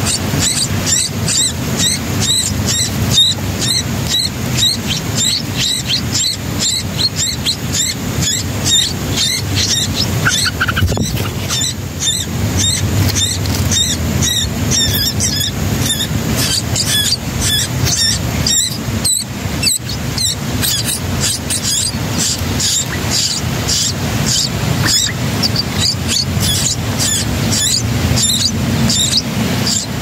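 Songbird nestlings begging: a fast, unbroken series of high, thin cheeping calls, several a second, as the parent feeds them at the nest. A steady low rumble runs underneath.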